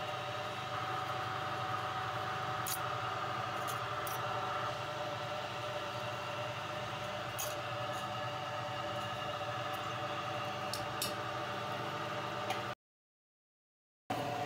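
Steady hum of workshop machinery, with a few light clicks as metal oil-filter parts are handled. The sound cuts out completely for about a second near the end, then comes back.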